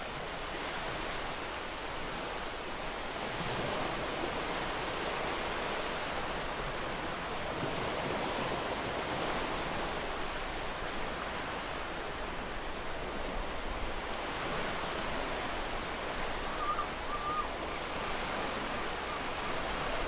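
Ocean waves breaking and washing on a shore: a steady rush of surf that swells gently and eases.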